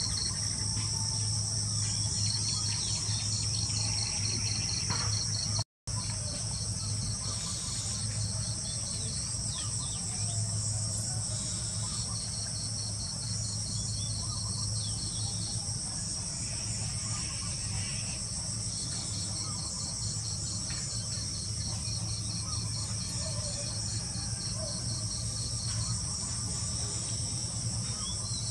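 Evening insect chorus of crickets chirping steadily in a dense, high-pitched pulsing trill, over a low steady hum. The sound drops out completely for a moment about six seconds in.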